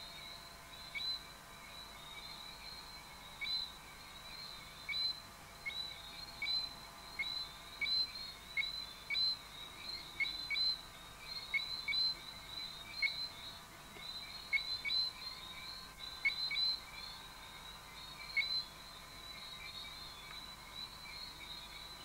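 Rainforest wildlife chorus: a steady high-pitched ringing under many short, sharp chirps, one to three a second. The chirps thin out near the end.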